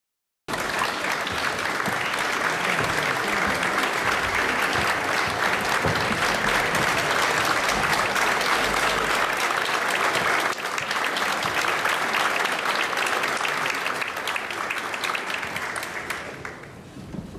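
Audience applauding. It starts abruptly just after the start and dies away near the end.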